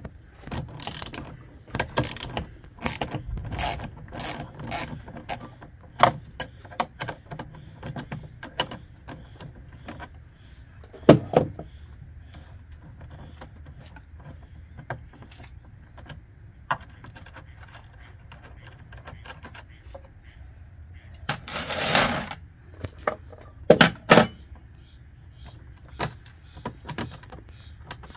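Small metal clinks and clicks of a wrench working the terminal nut and cable lugs on a lithium battery post, scattered and irregular, with a louder scraping rustle about two-thirds of the way through.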